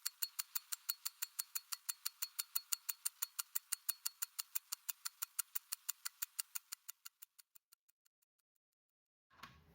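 Rapid, even mechanical ticking, about five or six sharp ticks a second, that grows fainter and slower about seven seconds in and stops. A short rustle or handling noise follows near the end.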